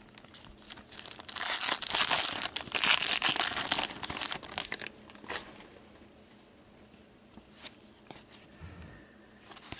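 The shiny wrapper of a 2014-15 Upper Deck Masterpieces hockey card pack being torn open and crinkled, starting about a second in and lasting around four seconds. After that come a few light clicks as the cards are handled.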